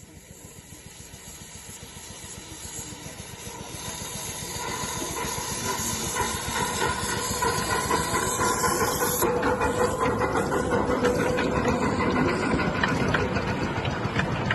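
Miniature steam engine hissing steam as it works, growing louder over the first five seconds or so and then holding steady.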